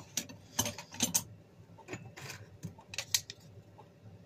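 Small wooden knife-handle scales being picked up and handled: a scattering of light clicks and taps.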